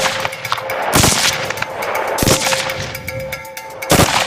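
SA80 A2 5.56 mm bullpup assault rifle firing three aimed single shots, each a sharp crack with a short echo, spaced a second or more apart.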